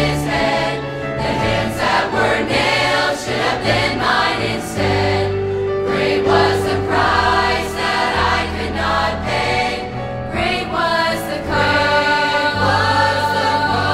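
Youth choir singing a sacred song with instrumental accompaniment.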